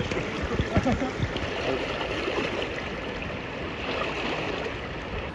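Steady rush of flowing stream water around rocks below a waterfall, with faint distant voices in the first second or so.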